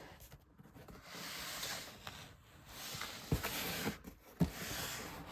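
Rustling and rubbing as a cardboard puzzle box and its packaging are handled, with two light knocks partway through.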